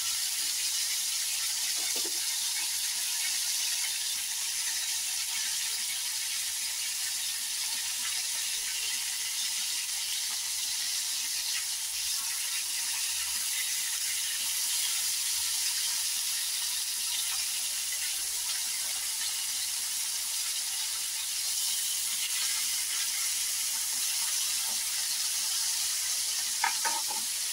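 Skewered mutton boti kababs frying in oil on a flat griddle over a medium flame, giving a steady, even sizzle.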